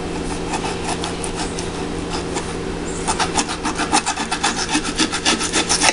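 A knife sawing back and forth through a raw chicken leg quarter to separate the drumstick from the thigh: a quick run of rasping strokes that grows faster and louder about halfway through.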